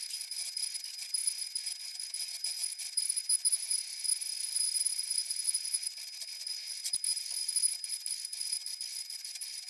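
CNC router spindle cutting oak: a steady high-pitched whine over a dense crackle and rattle of the bit and chips, with one sharper click about seven seconds in.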